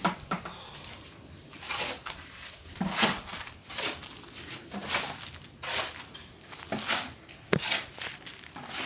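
Footsteps scuffing on rough ground, about one a second.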